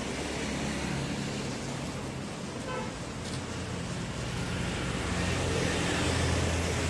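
Road traffic passing, a low engine hum that grows louder in the second half as a vehicle draws near.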